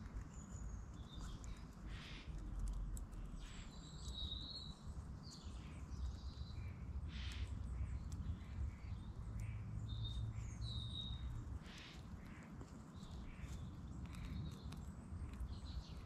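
Birds chirping now and then in short, high calls over a steady low rumble.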